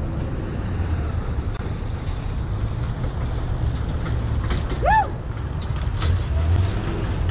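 An old square-body pickup truck towing a trailer drives past, its engine a low, steady rumble. About five seconds in, a short high call rises and falls over it.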